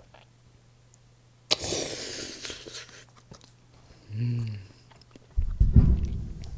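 Close-miked eating sounds: a sudden crisp bite and chew starts about a second and a half in, a short hummed 'mm' comes near four seconds, and loud wet chewing follows near the end.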